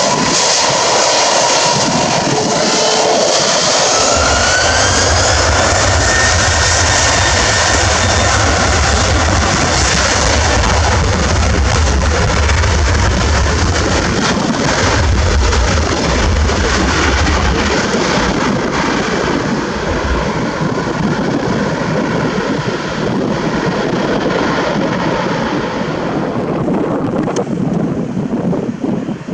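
Jet airliner engines at takeoff thrust: a loud, continuous roar with a whine gliding upward in pitch in the first few seconds and a heavy deep rumble through the middle, the higher part of the roar thinning toward the end.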